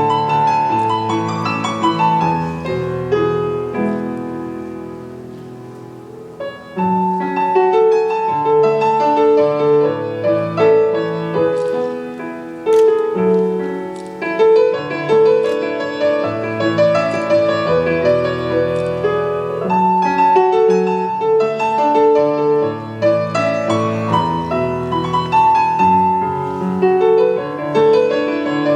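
Piano music in a slow, classical style, with a melody over chords. It softens to a quiet passage a few seconds in, then picks up again about seven seconds in.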